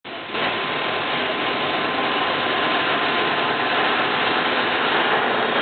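Steady noise of running workshop machinery, with a faint steady whine.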